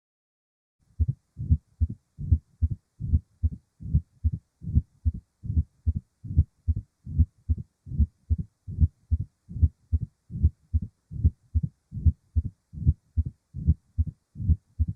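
Recorded heart sounds of mitral stenosis: a steady, even rhythm of low thumps starting about a second in. The first heart sound is very loud because of the thickened mitral valve, followed by an opening snap and a low-pitched diastolic murmur that grows louder as the atria contract.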